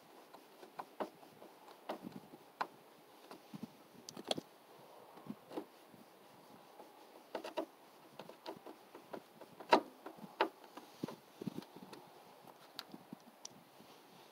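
Irregular light clicks and taps of a hand screwdriver and fingers working screws into a plastic radiator cover panel, with one sharper knock about ten seconds in.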